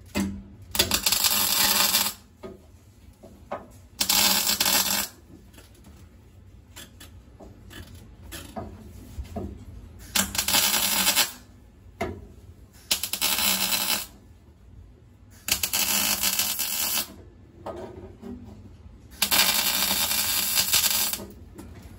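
Electric arc welder crackling in six short bursts of about one to one and a half seconds each, with pauses between. These are short beads tacking a replacement steel floor pan into a car body.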